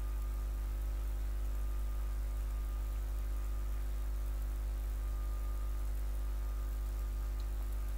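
Steady low electrical hum with a buzz of overtones above it and faint hiss, unchanging.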